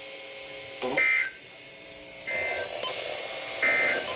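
Emergency Alert System end-of-message code: three short bursts of warbling digital data tones, a little over a second apart, marking the end of the severe thunderstorm warning broadcast.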